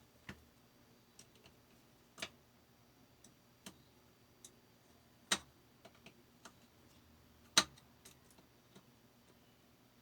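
Irregular light clicks and taps, about a dozen with uneven gaps, the loudest two about five and seven and a half seconds in.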